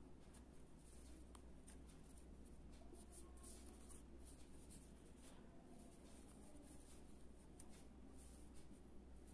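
Near silence with the faint, irregular scratchy rustle of yarn drawn through stitches by a crochet hook, over a low steady hum.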